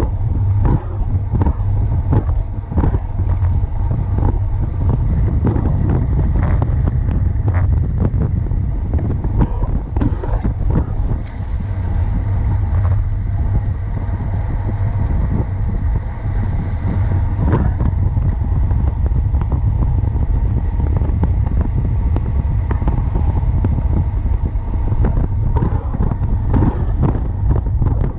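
Wind buffeting a bike-mounted action camera's microphone during a fast road-bike descent: a steady, loud, low rumble with many short knocks and rattles from the road surface.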